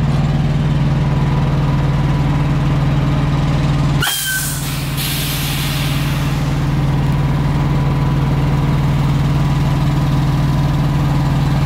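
Diesel engine idling steadily. About four seconds in, a sharp burst of compressed air hisses out of the semi truck's air brake lines for a couple of seconds.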